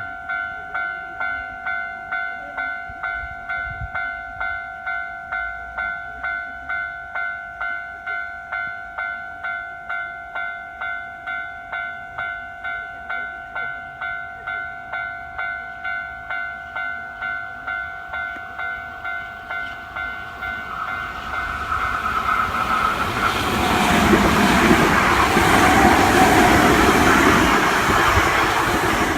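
Japanese railway level-crossing alarm ringing a steady electronic ding-ding, a little over two strokes a second. From about twenty seconds in a Hankyu electric train comes up and passes close by, loudest near the end, with the alarm still ringing under it.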